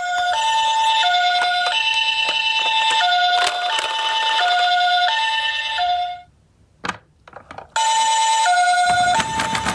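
Toy ambulance minicar's electronic siren sounding a two-tone hi-lo wail, like a Japanese ambulance. The tones alternate about every 0.7 s. It stops about six seconds in, a few clicks follow, then the siren starts again, with a rushing noise joining near the end.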